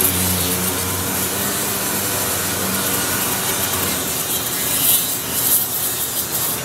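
Sanding on the rusty sheet metal of a 1974 Ford F250 cab: steady, scratchy rubbing of abrasive on metal. A low steady hum fades out in the first second or two.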